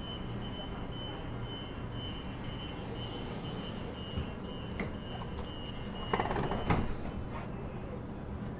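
Bombardier B-series electric train running, heard from inside the carriage as a steady low rumble. A high electronic beeping pulses about twice a second through most of it and stops about seven seconds in, with a short clattering rattle just before it ends.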